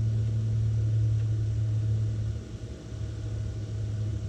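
Steady low hum of a running outdoor air-conditioning condenser unit, dipping briefly in level a little past halfway.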